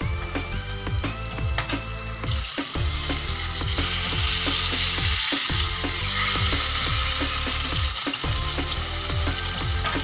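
Breaded chicken breast fillets deep-frying in hot oil, a dense sizzle that grows louder about two seconds in as another flour-coated fillet goes into the oil. Background music plays underneath.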